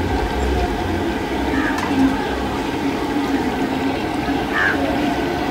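Chicken pieces deep-frying in a large wok of hot oil, the oil bubbling and sizzling steadily, with a low hum underneath and voices in the background.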